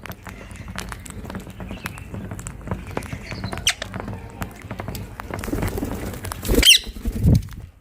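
Rose-ringed parakeets giving short sharp calls amid scattered clicks and rustles, with one loud squawk about two-thirds of the way in. Low thumps come at about the same time.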